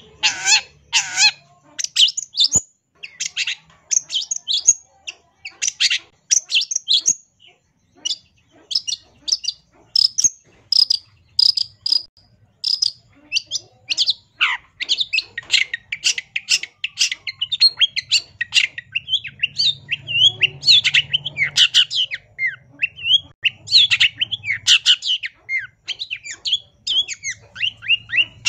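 Long-tailed shrike (cendet) singing continuously: a rapid, varied stream of high chattering and whistled notes packed with imitations of other birds' calls. Partway through, the song turns into a denser, unbroken run of chattering.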